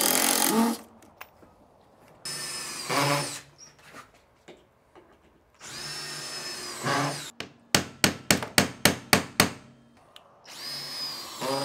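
Power drill running in four short bursts of about a second each, spinning up and winding down, as it drives deck screws. About two-thirds of the way through there is a quick run of about eight sharp knocks.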